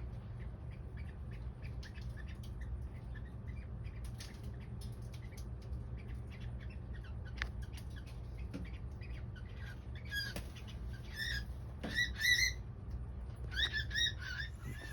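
Amazon parrot giving several short squawks in the last few seconds, after a stretch of faint chirps and clicks, over a steady low hum.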